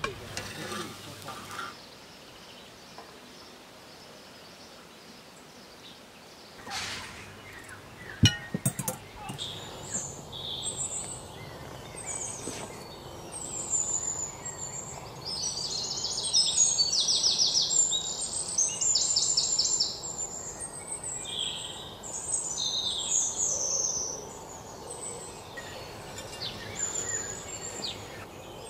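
Small songbirds chirping and trilling, with a dense run of fast trills in the middle. A few sharp knocks come about eight seconds in, before the birds start.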